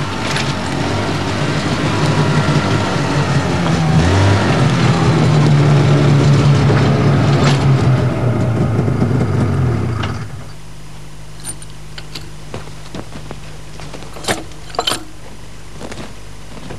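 Lynx snowmobile's two-stroke engine running along a forest trail, its pitch rising and falling with the throttle. About ten seconds in it drops to a steady low idle, and a few sharp knocks follow near the end.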